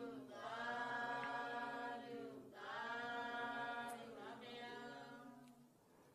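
Buddhist chanting: three long, held, chanted notes, each gliding slightly down as it begins, fading out toward the end.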